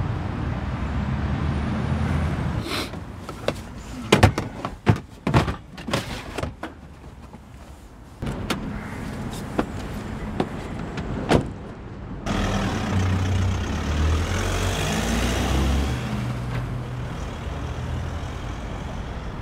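A van's doors being handled: a run of sharp clicks and knocks as they are opened and shut. Then the van's engine runs, growing louder as it pulls away, and fades.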